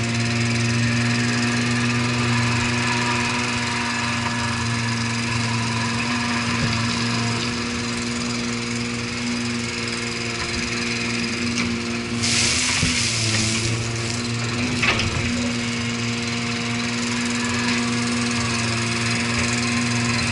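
Small diesel digging machine running steadily with its engine working the hydraulics as the bucket lifts a load of soil. A hiss about twelve seconds in lasts a second and a half, and a single knock follows a little later.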